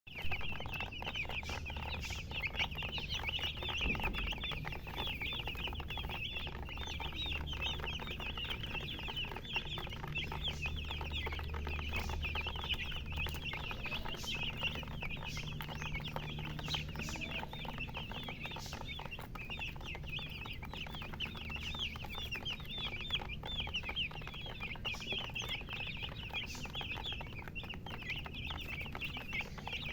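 A brood of domestic chicken chicks chirping, many high, short peeps overlapping without pause, over a low steady hum.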